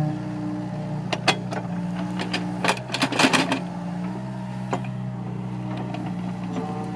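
Excavator engine running steadily, with sharp clatter and scraping about a second in and a burst of it around three seconds in as the bucket digs and lifts soil from the trench.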